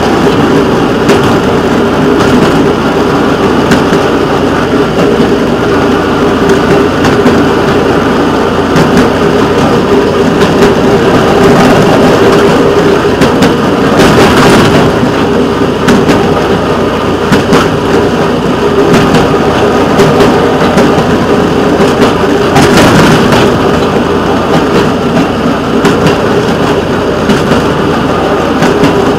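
Engine of a small rail vehicle running steadily as it rolls slowly along yard track, with a few sharp clacks from the wheels crossing switches and rail joints, the loudest about halfway through.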